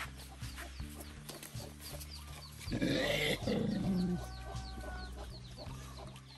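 Background music with steady low notes, over chickens clucking and short high chirps repeating about twice a second. About three seconds in, a loud rough burst lasting about a second and a half stands out above the rest.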